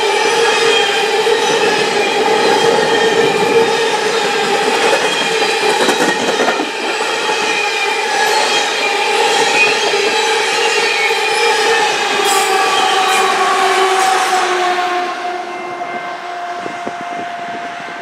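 Coal train's hopper cars rolling past with a steady, high wheel squeal over the rumble of the wheels. From about 15 seconds in, the squeal slides a little lower in pitch and the sound fades as the end of the train goes by.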